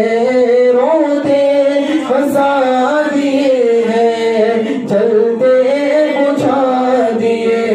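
A man singing a naat, an Urdu devotional poem in praise of the Prophet, solo in long held melodic lines with wavering, ornamented turns of pitch.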